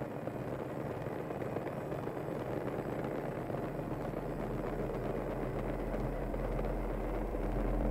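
Steady rumble of bus engines in a bus station, slowly growing louder, with a deep low hum swelling in from about halfway.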